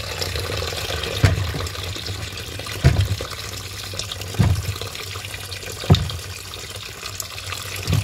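Tap water running steadily into a plastic basin of cucumbers in a sink, splashing as they are rinsed. Dull thumps come about every second and a half.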